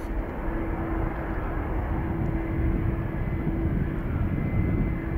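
Boeing 737-800's CFM56-7B turbofan engines at takeoff thrust as the jet lifts off and climbs away: a steady, powerful jet rumble, heaviest in the deep low end.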